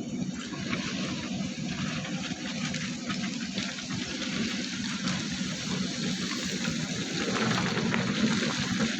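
A heavy diesel engine of quarry machinery running steadily, with a continuous rushing, hissing noise over it.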